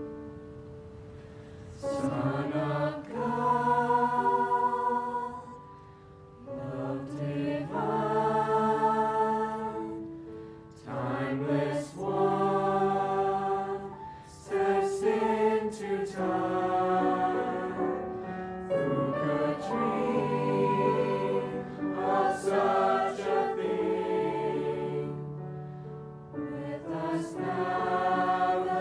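Mixed high-school choir of male and female voices singing a Christmas song in harmony. A soft held chord opens, the full choir comes in about two seconds in, and the song goes on in phrases with short breaks between them.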